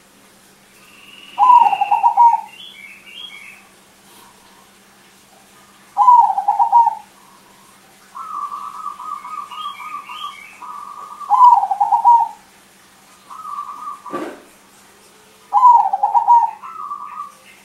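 Crossbred zebra dove (perkutut crossing) cooing: four loud, fast-trilled coo phrases of about a second each, a few seconds apart, with softer trilled cooing in between. A single sharp knock comes about fourteen seconds in.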